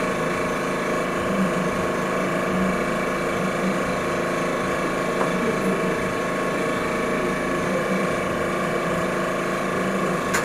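Steady mechanical hum of a running machine, even in level, with several fixed tones and no change.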